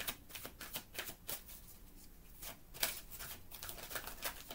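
A deck of cards shuffled by hand: a quick, irregular run of short clicks and flicks as the cards slide and tap against each other.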